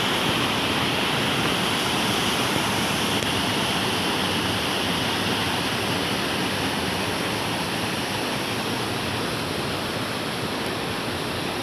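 Waterfall rushing steadily, a continuous even wash of falling water.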